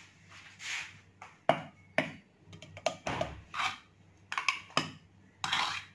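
A metal spoon tapping and scraping against a blender jar as scoops of vanilla ice cream go in: a scattered run of short clinks and scrapes, with a duller knock about three seconds in.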